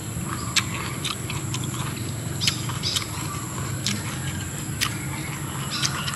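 Close-up eating sounds: a person chewing with mouth noises and sharp clicky crunches every half second to second, over a steady high whine in the background.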